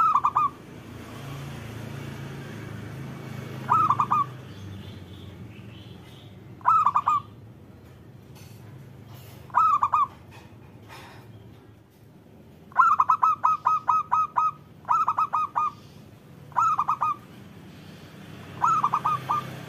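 Zebra dove (perkutut) cooing: short phrases of quick coos repeated every two to three seconds, eight phrases in all, with one longer run of rapid notes about two-thirds of the way through.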